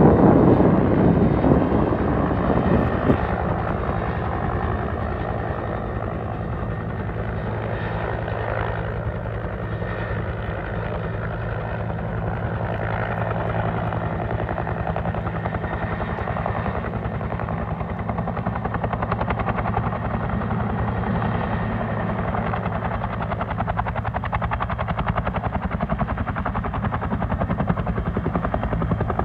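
Bell 212 helicopter running with its two-bladed main rotor beating rapidly and steadily over the turbine sound. It is louder and noisier for the first few seconds, then settles to an even run.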